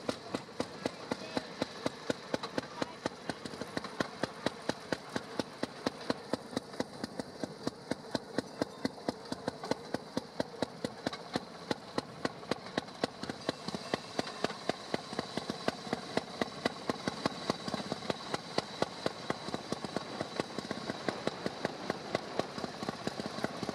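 Railroad motorcar (track speeder) engine running loud as the car rolls along the rails, with an even, rapid popping beat over a steady rumble.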